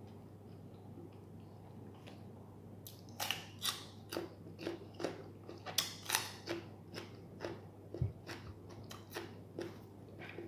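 Crisp crunching of freshly picked raw cucumber being chewed close to the microphone. It starts about three seconds in as a quick run of crunches, two to three a second.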